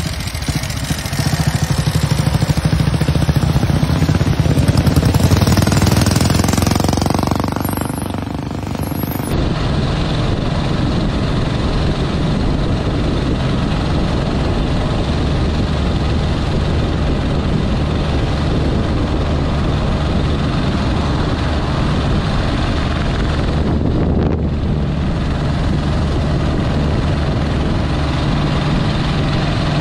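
Vintage motorcycle engine running steadily at riding speed, heard from on board with wind rushing over the microphone. For the first nine seconds or so, a louder, rougher engine sound runs close by, then cuts off abruptly.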